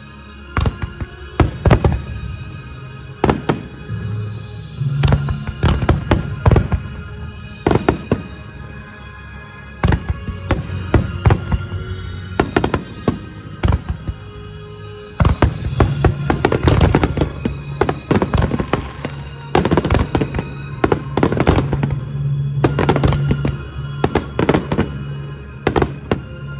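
Fireworks shells bursting in a rapid series of sharp bangs over music, the bangs coming thicker and faster about halfway through, as in a fireworks show synchronised to music.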